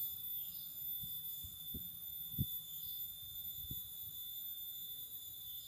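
Insects keeping up a steady high-pitched chorus of several held tones, with a few soft low thumps, the strongest near the middle.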